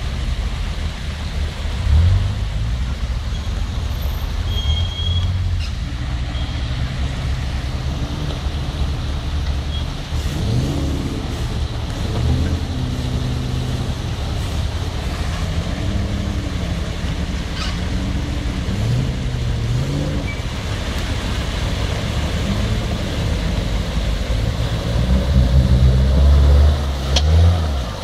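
Off-road 4x4 engines running and revving up and down as the vehicles ford a muddy stream, with a steady wash of water and splashing. Near the end one vehicle drives through close by and its engine becomes the loudest sound.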